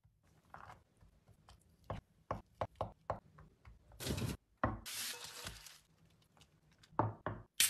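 Kitchen handling sounds: light taps and clicks as pizza toppings are set down in a metal pan, then a loud crinkling rustle about four seconds in and another lasting about a second, as the pan is handled on aluminium foil in the oven.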